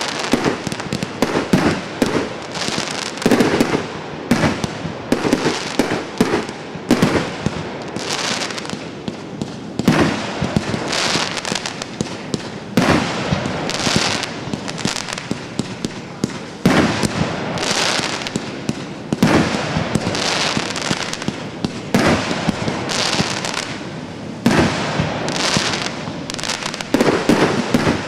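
A multi-shot "Golf Club" firework cake firing: a dense, continuous run of bangs, several a second, with crackling between them.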